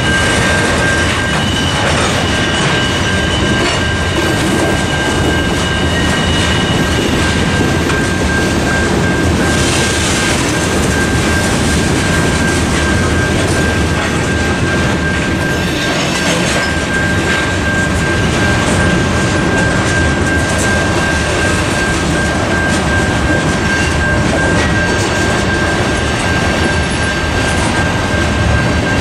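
Freight cars, covered hoppers and tank cars, rolling steadily through a grade crossing: a continuous rumble and clatter of wheels on rail, with a faint high wheel squeal in the first several seconds. Under it, a Safetran Type 3 electronic crossing bell rings without a break, a steady high tone.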